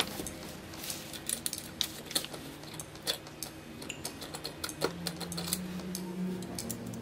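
Small screwdriver working the screws of an old camera's plastic frame: scattered light clicks and ticks of the metal tip on screw heads and plastic.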